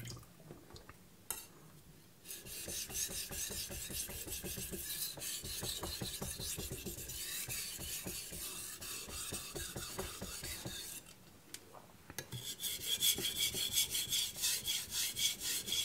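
Aogami #2 carbon-steel knife blade scraping back and forth on a wet Naniwa Pro 1000-grit whetstone, a set of sharpening strokes that raises a burr on the edge. About two seconds in, a long run of steady strokes starts, pauses for about a second near 11 s, then picks up again with quick, distinct strokes near the end.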